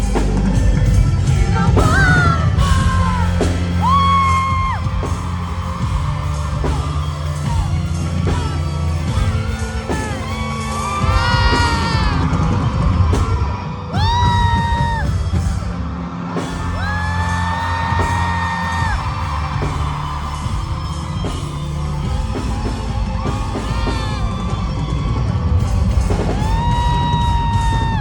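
Live pop-rock concert music heard from within the audience: a band playing with a string of long, held high notes, and fans yelling and whooping.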